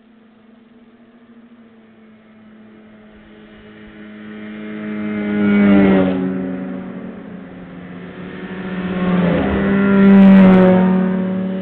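Two snowmobiles passing close by, one after the other. Each engine's whine builds and then drops in pitch as it goes past, the first about six seconds in and the second, the louder, about ten seconds in with a brief hiss as it passes.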